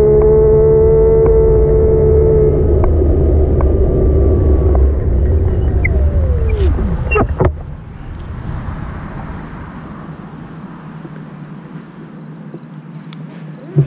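E-bike electric motor whining at a steady pitch under low rumble, then falling in pitch as the bike slows to a stop about seven seconds in, with a few sharp clicks. It stays much quieter for several seconds until the whine starts rising again at the very end as the bike pulls away.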